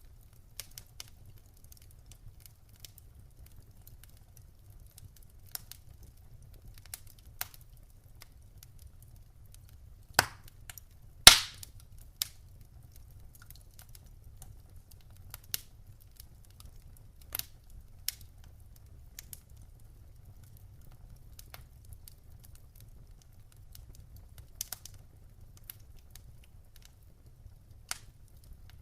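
Wood fire in a fireplace crackling, with irregular sharp pops and snaps from the burning logs over a faint low rumble; two loud pops come close together about ten and eleven seconds in.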